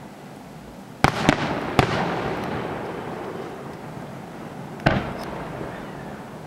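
Aerial fireworks shells bursting: three sharp bangs in quick succession about a second in, then a rumble that slowly dies away, and another bang near the five-second mark.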